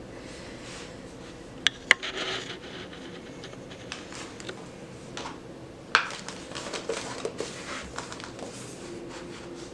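Art supplies being handled on a tabletop: light rubbing and scratching, with sharp little taps about two seconds in and again about six seconds in.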